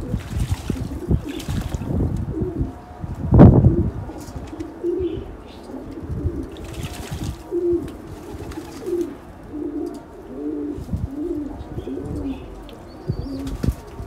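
Pakistani high-flyer pigeons cooing, a run of short low coos repeating over and over, with a loud low thump about three and a half seconds in.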